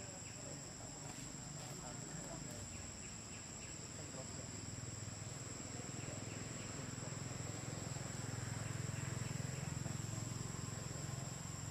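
Steady high-pitched drone of insects chirring in the forest, with a low rumble growing louder in the second half.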